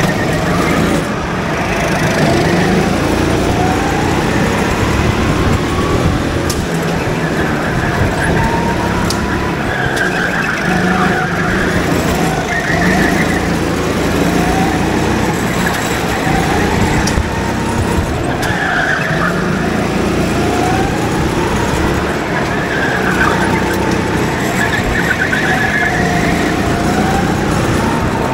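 Go-kart engines running on a track, their pitch rising again and again as the karts accelerate, over a steady loud engine din.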